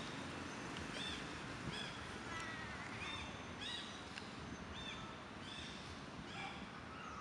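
Short, high chirping animal calls, each rising then falling, repeated about once or twice a second over a steady outdoor hiss.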